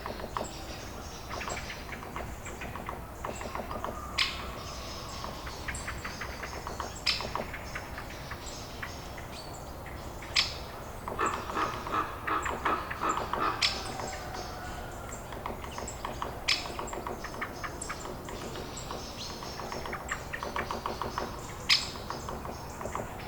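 Birds chirping and calling, with loud sharp chirps every few seconds and a busy stretch of rapid calls in the middle.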